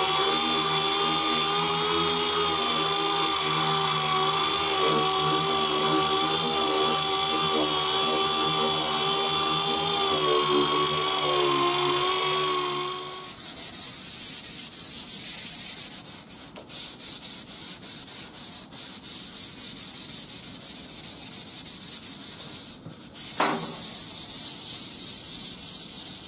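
A pneumatic random-orbital (DA) palm sander with 220-grit paper runs as a steady whine for about the first half, smoothing hand-blocking scratches out of urethane primer surfacer. It then stops, and sandpaper is rubbed by hand over the primed panel in quick scratchy strokes. A short squeak sounds near the end.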